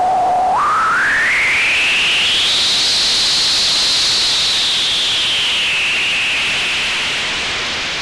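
Synthesized white noise with a whistling band of pitch inside the hiss. The band jumps up about half a second in, glides up high over the next couple of seconds, then sinks a little and holds. The noise fades slightly toward the end.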